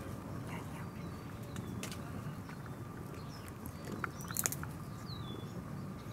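Small birds chirping in short, scattered calls over a steady low rumble, with a sharp click about four seconds in.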